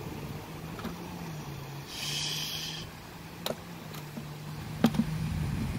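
A steady low motor drone that shifts slightly in pitch, with a brief buzzy hiss about two seconds in and a few sharp clicks near the end.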